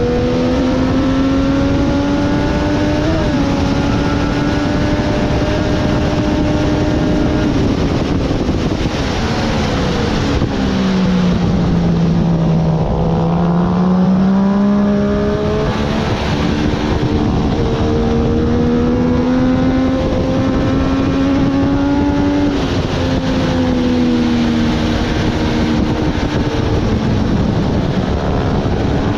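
Triumph Daytona 765's three-cylinder engine running hard on track, heard onboard over steady wind rush. The pitch climbs with a sharp step about three seconds in, falls away steadily around the middle as the throttle closes, then climbs again, and drops once more with a gear change about two-thirds through.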